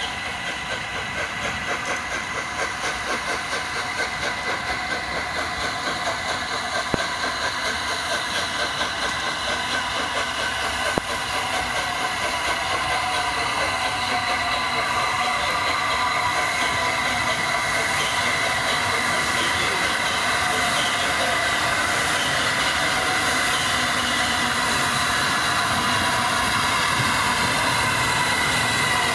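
Steam-hauled train behind the LNER A3 locomotive Flying Scotsman running on the rails, with a rhythmic beat over the first half and a steady rise in level. A steady high whine runs through the noise.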